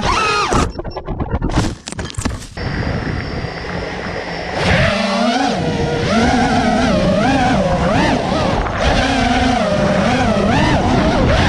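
FPV quadcopter's brushless motors and propellers whining, the pitch rising and falling with the throttle. About a second in the whine breaks up into short stutters for a couple of seconds, then it picks up again and keeps swinging up and down.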